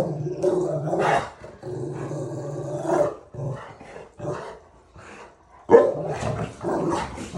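Dogs growling in rough play: two long, low play growls over the first three seconds, then shorter growls and grunts, with a sharp bark a little before six seconds.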